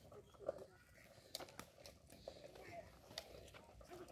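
Near silence, with faint voices and a few small scattered clicks and crunches.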